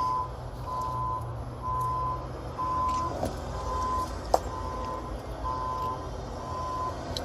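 Vehicle reversing alarm beeping steadily about once a second over a low engine hum, with one sharp click about four seconds in.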